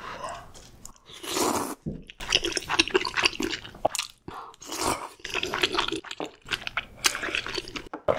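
Close-miked chewing of food, with dense, irregular wet crackles and crunches from about two seconds in.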